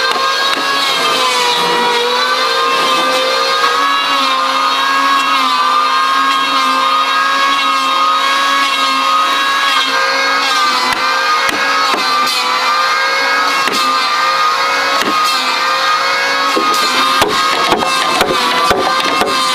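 A steady pitched drone, wavering slightly in pitch, with the sharp knocks of a hammer striking a chisel as a mortise is cut in a timber beam, scattered at first and coming thick and fast in the last few seconds.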